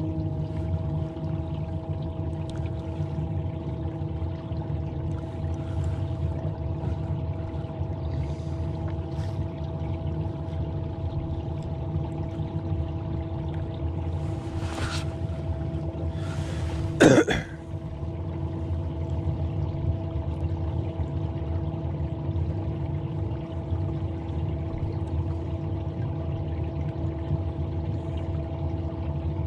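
A small fishing boat's motor running steadily under way: a low rumble with a steady hum, with water trickling and lapping along the hull. A single sharp knock comes a bit past halfway.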